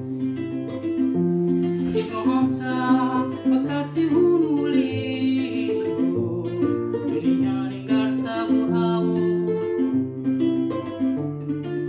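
Nylon-string classical guitar with a capo, played with plucked notes over a moving bass line. A man sings along to it.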